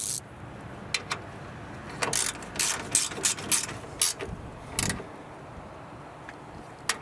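Ratchet wrench and metal tool clicking in short uneven runs as the battery hold-down bolt is run back in on its rod.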